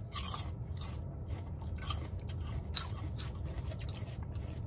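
Someone chewing and crunching food close to the microphone, with scattered crisp crunches.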